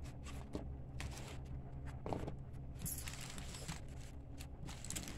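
Faint rustling and small taps of trading cards and wrapped card packs being handled and set down on a table, with a brief crinkle of pack wrapper about three seconds in. A steady low hum runs underneath.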